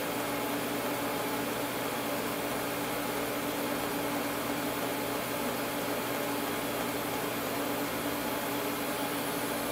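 Pulsed TIG welding arc on thin-wall stainless tube, run autogenously at full pedal: a steady hiss with a low hum underneath, unbroken.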